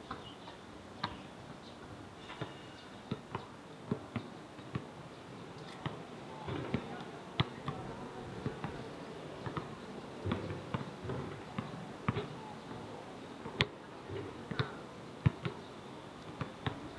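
Basketballs bouncing on a hard outdoor court: irregular sharp thuds, about one to two a second, some overlapping as if from more than one ball.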